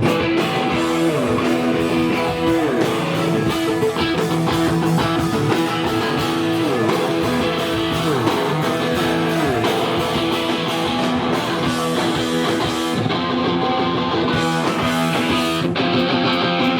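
A band playing live, with strummed electric guitar to the fore over bass.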